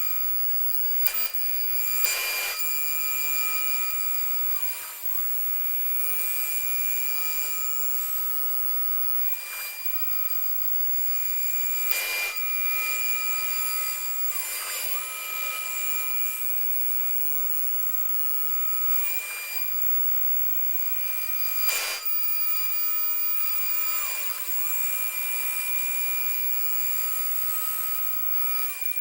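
CNC router running a job: a steady high-pitched machine whine that steps down slightly in pitch and back up every few seconds as the machine changes its moves, with a few sharp clicks along the way.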